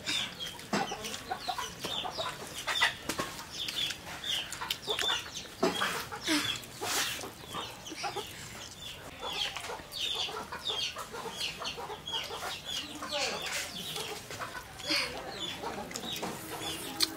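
Chickens clucking with many short, repeated calls, mixed with scattered sharp clicks and knocks.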